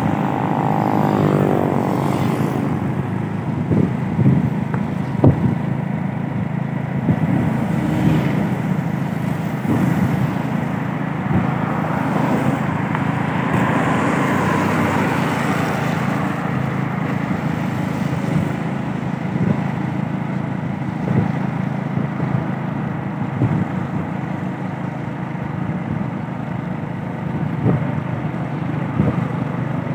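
Steady running noise of a motorcycle ridden along a wet road: engine, tyres and wind together, with small knocks from the road. A vehicle goes by near the start, its pitch falling as it passes.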